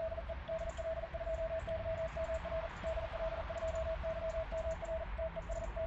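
Morse code CW sidetone from an Icom IC-7300 transceiver: one steady mid-pitched tone keyed into dots and dashes as a CW test call is sent on the air. A faint hiss and low hum lie beneath it.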